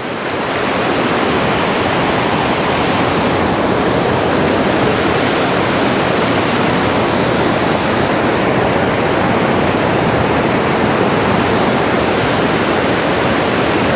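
Roar of a large, high multi-tiered waterfall: a loud, steady rush of falling water with no break.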